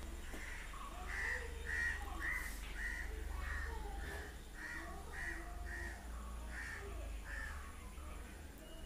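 A bird calling repeatedly: about a dozen short, similar calls, roughly two a second, faint over a steady low hum.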